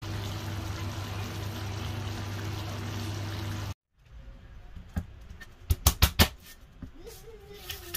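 A pan of chicken stew simmering with a steady bubbling hiss over a low hum. After a brief break, a knife strikes a wooden cutting board about five times in sharp knocks, four of them in quick succession.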